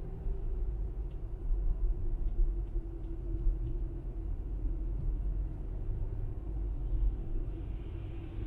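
Steady low rumble of a car's engine and tyres heard from inside the cabin while driving at highway speed.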